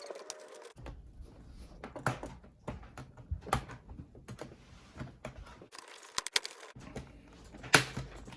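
Plastic snap clips on a laptop's case clicking and cracking as the two panels are pried apart, with rubbing and handling of the plastic shell. The loudest snap comes near the end.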